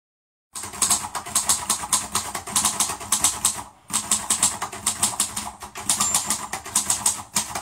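Rapid, evenly spaced clicking like typing on a keyboard, an intro sound effect, in two runs with a short break about halfway through.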